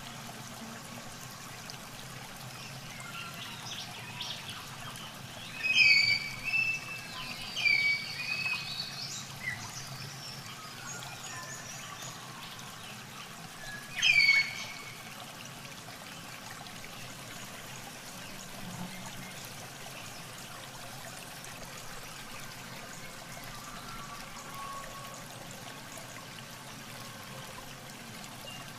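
Muddy pond water being bailed with a plastic bucket, pouring and trickling steadily. A few chirping bird calls stand out over it about six to ten seconds in and again around fourteen seconds.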